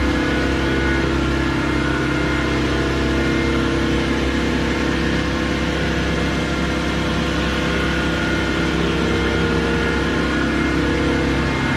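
Steady, loud drone of running sulphonation-plant machinery: a constant low hum with several steady tones over an even mechanical rush, unchanging throughout.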